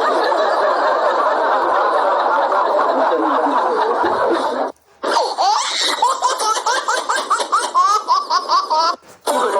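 Laughter sound effects: first several voices laughing together as one dense mass for about four and a half seconds. After a short break comes a single high-pitched laugh in quick, repeated rising notes.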